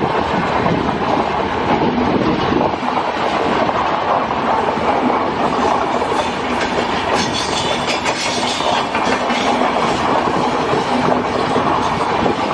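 Passenger express train running past, a steady loud rumble and rattle of coach wheels on the rails with clickety-clack over the rail joints.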